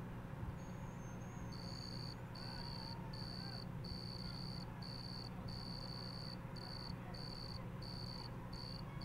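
Cricket chirping in a steady run of short high trills, starting about a second and a half in, over a steady low hum.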